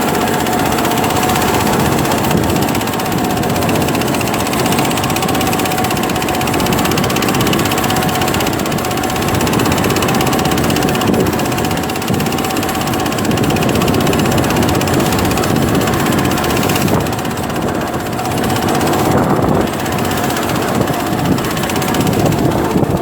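Small fishing boat's engine running steadily under way, with a steady drone held throughout, over a haze of wind noise.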